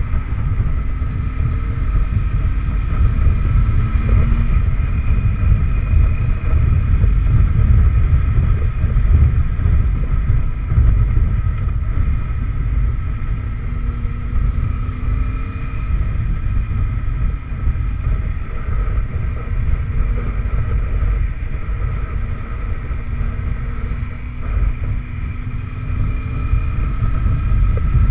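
Benelli TRK502X's parallel-twin engine running under way, its note rising and falling gently, recorded from the moving bike under a heavy low rumble of wind on the microphone.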